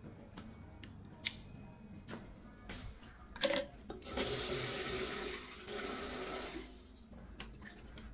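Washbasin tap running for about three seconds, filling a small plastic cup with water. A single knock comes just before the water starts, with a few light clicks earlier.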